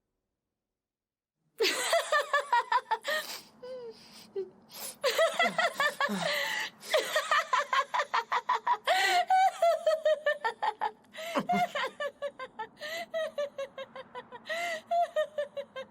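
A young woman laughing hard and long, in runs of quick high-pitched ha-ha pulses broken by short breaths, starting after about a second and a half of silence.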